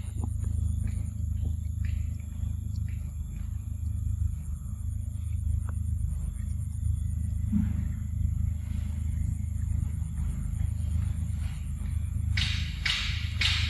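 A young macaque eating ripe mango, with faint clicks of chewing and then a quick run of wet smacking bites near the end, over a steady low rumble.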